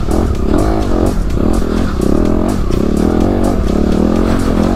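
Dirt bike engine revving up and down in quick throttle bursts while climbing a rocky trail, with background music underneath.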